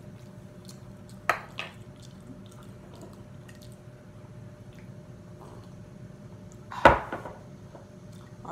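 Tableware handling: a metal spoon set down on a plate with two light clicks about a second in, then a louder knock near the end as a ceramic mug is set down on the table after a drink.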